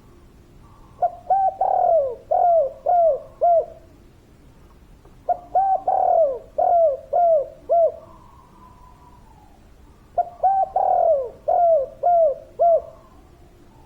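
Spotted dove cooing its song three times, each phrase a short note, a long drawn-out coo and then three quick clipped notes (the "kuk 3" song type).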